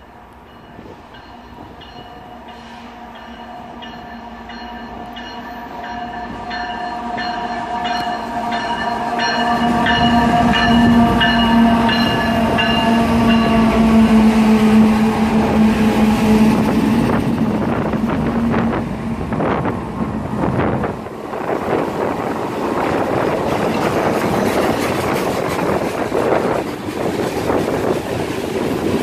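CSX freight train approaching and passing close by at speed. The lead diesel locomotive sounds a long multi-note horn that grows louder and dips slightly in pitch as the locomotives go by. Then comes the rumble and rhythmic clickety-clack of the trash gondola cars' wheels over the rail.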